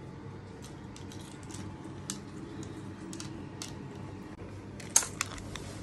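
Scattered light clicks and taps of clam shells and tableware as clams are eaten, with a sharper click about five seconds in, over a low steady hum.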